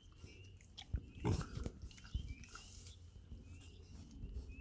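Hereford-Berkshire cross piglets grunting and snuffling, with one louder grunt a little over a second in.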